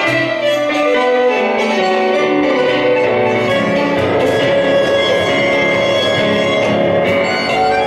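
Live tango music played by a violin and piano duo, the violin carrying the melody over the piano.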